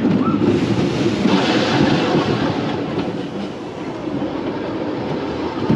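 Roller coaster train running along its track, with a continuous noise of wheels on rail. A higher rushing hiss joins about a second in, and the noise eases slightly after the middle.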